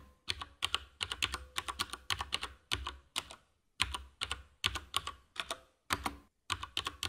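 Computer keyboard typing sound effect: rapid clicks in quick runs of several keystrokes with short pauses between them, as text is typed out.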